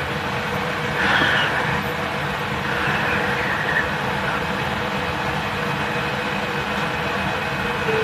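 Cabin noise inside a JR Central 313 series electric train: a steady rush of air-conditioning and running noise as the train starts to pull away from a station.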